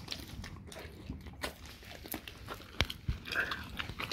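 A dog biting and chewing a raw cow tongue, with irregular clicks of its teeth and jaws. The loudest click comes nearly three seconds in, followed by a dull knock.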